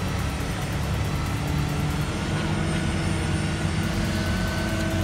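Truck engine running steadily, an even drone with a faint steady hum.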